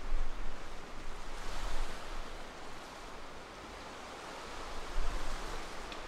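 Sea waves washing onto the shore of a rocky cove, a steady surf hiss that swells and eases, with wind rumbling on the microphone.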